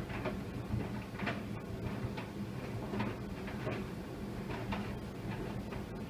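Tumble dryer running, a steady motor hum under irregular soft knocks and ticks, two or three a second, as a load of microfiber cloths and mops tumbles in the drum.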